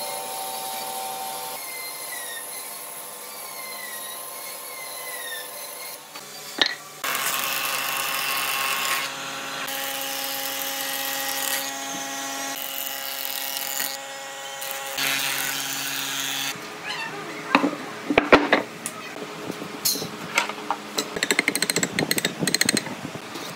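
Bandsaw running as it finishes a lengthwise rip through a wood slab, then a combination jointer-planer running with a steady, louder note as a board is fed through it. After that come irregular sharp knocks, clicks and scrapes of a steel square and pencil on wooden boards.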